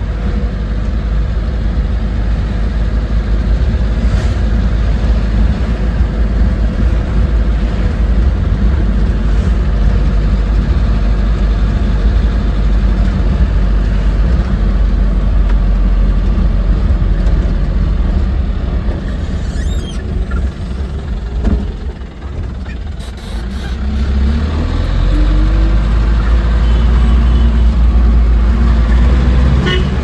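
Engine and road rumble of a moving vehicle on a highway, loud and low throughout. The rumble eases for a moment around two-thirds of the way in as the vehicle slows, then swells again with a rising engine note as it pulls away.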